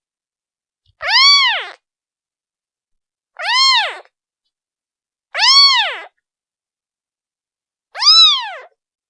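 A one-day-old kitten meowing for its mother: four separate high calls about two seconds apart, each rising then falling in pitch.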